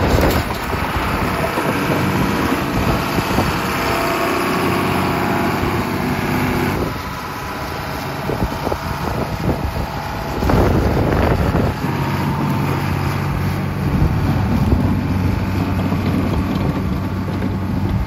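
A vehicle engine running steadily. It drops off a little about seven seconds in and picks up again after about ten seconds.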